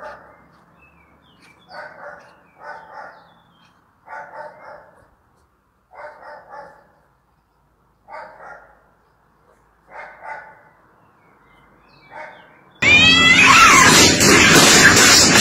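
Two cats in a standoff giving short, repeated yowling calls, one or two at a time every second or two. Near the end a sudden, much louder burst of noise with rising squeals cuts in.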